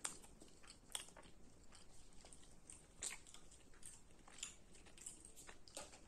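A person eating close to the microphone: soft chewing with crisp crunches every second or two.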